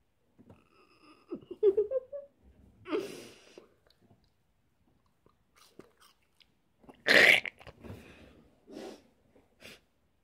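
A boy's breathing noises as he reacts to the heat of Flamin' Hot chips: a short vocal grunt near two seconds in, a noisy exhale about a second later, and one loud, sharp burst of breath about seven seconds in, followed by a few fainter breaths.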